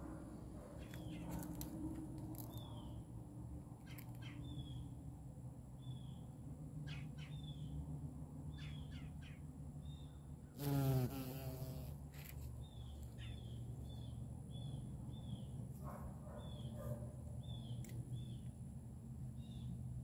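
Carpenter bee buzzing in flight: a low hum, swelling to a short loud buzz with a shifting pitch about halfway through as it flies close. Short high bird chirps repeat throughout.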